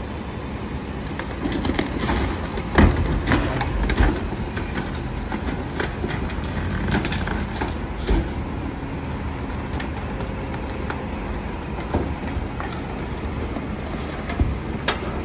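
Rear-loading garbage truck's packer running its compaction cycle: a steady engine and hydraulic drone with heavy clanks and thumps as the blade sweeps the bags in, loudest about two to four seconds in. A few short high squeals come near the middle.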